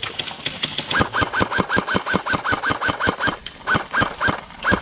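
Airsoft rifle firing a rapid string of shots close by, about six or seven a second for some two seconds starting about a second in, then four more single shots spaced apart. Fainter, faster ticking of other airsoft guns runs underneath.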